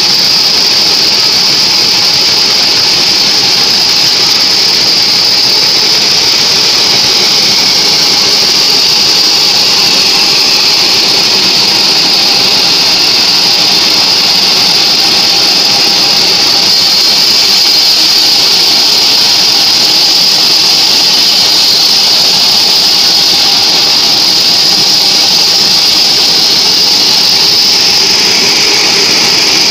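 Large log band saw running and sawing through a mahogany log on its carriage: a loud, steady high-pitched whine over a rushing noise, with no pauses.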